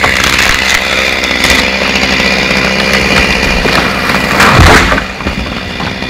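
Two-stroke chainsaw running steadily at an even speed. About four and a half seconds in there is one loud, deep thump, the loudest sound here.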